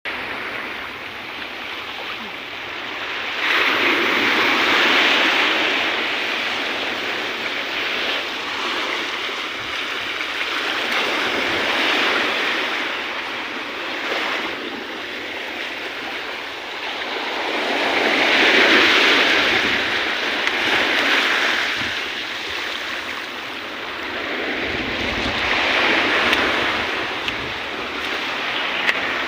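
Sea surf washing ashore, a steady rush of water that swells and fades in slow surges every several seconds, with a few larger breakers standing out.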